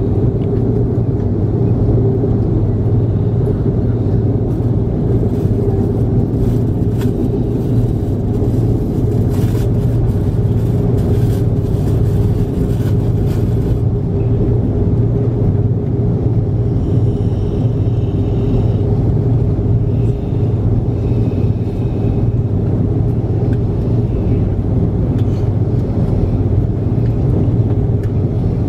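Airbus A330-300 taxiing, heard from inside the cabin: a steady low hum of the running jet engines with a constant droning tone over it.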